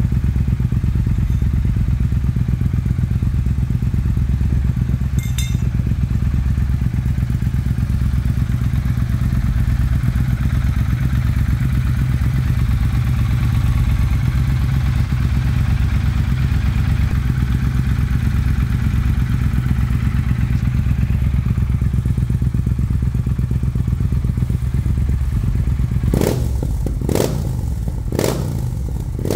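Triumph Thruxton RS 1200 cc parallel-twin running through a Scorpion full header and Arrow slip-on silencer with carbon end cap, idling steadily. Near the end the throttle is blipped three times, about a second apart.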